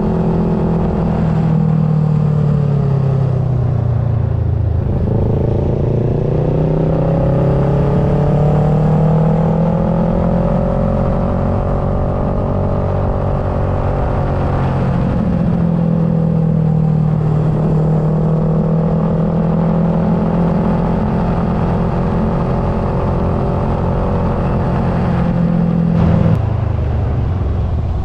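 Kawasaki Versys 650's parallel-twin engine under way, its pitch dropping and climbing again several times as the throttle is rolled off and opened through the curves, with wind rush underneath. The sound changes abruptly near the end.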